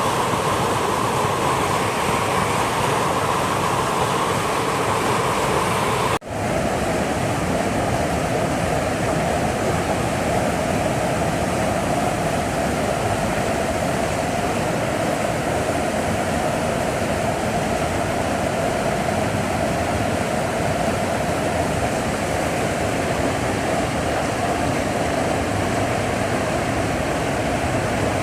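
Rushing water of a river or waterfall, a steady loud rush. It breaks off for an instant about six seconds in and then carries on a little deeper in pitch.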